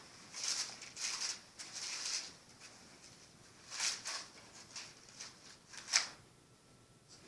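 Soft rustling: a handful of short, hissy rustles spread over a few seconds, with one sharper, louder one about six seconds in.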